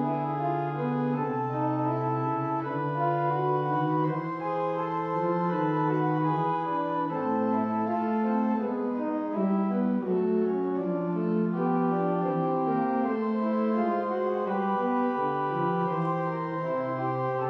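Church organ playing the postlude that closes the service: slow, sustained chords changing every second or two over a moving bass line.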